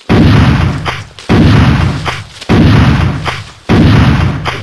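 Four gunshots fired upward in quick succession, about a second and a quarter apart. Each is a sharp blast with a booming tail that dies away over about a second, far heavier than an air rifle's report.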